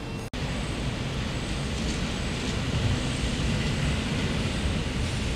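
Steady low rumble of a rail station and yard, with no distinct train passing. The sound drops out for an instant near the start, where the picture cuts.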